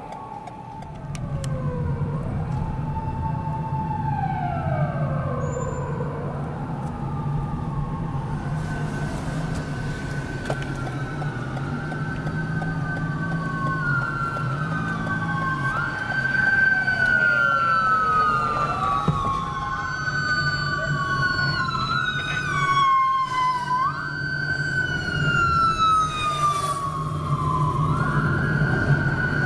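Japanese police car siren wailing in slow rising and falling sweeps over the steady drone of engine and road noise. About a third of the way in the wail moves higher in pitch, each fall ending in a sharp jump back up.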